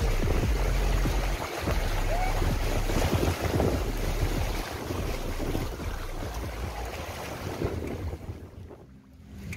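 Small waves washing over a rocky shallow shore, with wind buffeting the microphone and splashing as someone wades through ankle-deep water. The sound fades out near the end.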